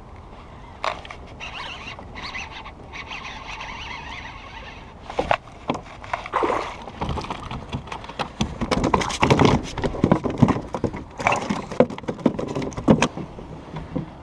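Water splashing and knocking against a kayak as a hooked largemouth bass is fought and landed. The splashes come in irregular bursts, loudest in the second half.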